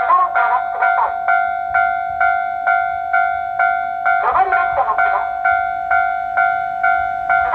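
Electronic warning bell of a Japanese talking level crossing, ringing at about two strikes a second. Twice, a recorded woman's voice speaks over it with the crossing's spoken warning.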